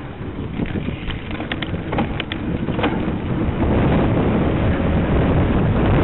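Wind buffeting the microphone of a handheld camera: a rough, uneven rumble that grows louder a little past halfway, with a few short clicks in the first three seconds.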